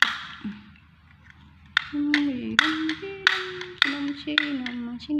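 Red toy chattering teeth snapping shut with sharp clacks, unevenly about twice a second from about two seconds in, with short, low, held tuneful notes sliding downward in between.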